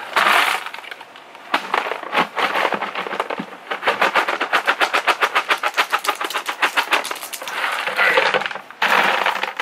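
Gravel tipped from a plastic bucket into a post hole, the stones clattering out. A rush of sliding gravel comes at the start and again near the end, with a fast, even run of sharp clicks, about six a second, in between.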